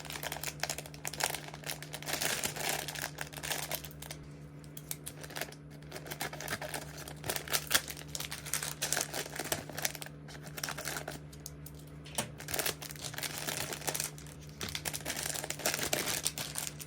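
Packaging wrap crinkling as merchandise is handled and unwrapped by hand, going on and off with short pauses.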